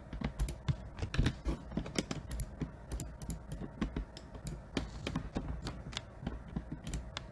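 Irregular clicking of a computer keyboard and mouse, short sharp taps at uneven intervals, several a second.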